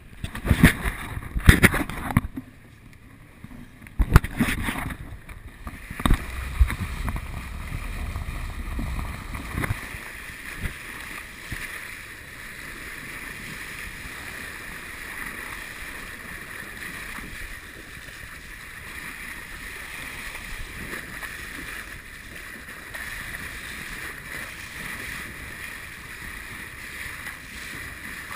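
Knocks and bumps from a GoPro camera being handled for the first few seconds, then a steady rush of wind and moving water over the camera as it is held just above the sea surface.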